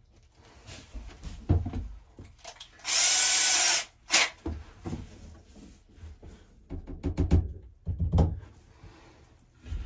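Cordless drill driving a screw up into a wallboard ceiling panel, running steadily for about a second a little under a third of the way in. A few knocks and bumps from handling come before and after it.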